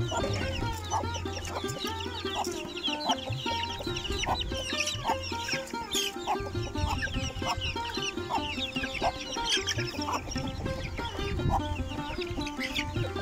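Chickens clucking, over background music.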